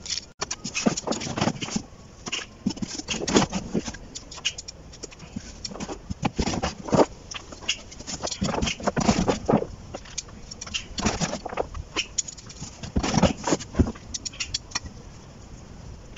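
A hand trowel scooping and scraping soil out of a styrofoam box and dropping it into a plant pot: irregular gritty scrapes and rustles of earth, dying away about a second before the end.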